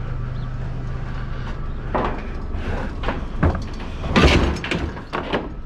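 Heavy scrap being handled, with a series of knocks and scrapes that are loudest about four seconds in, over a steady low hum.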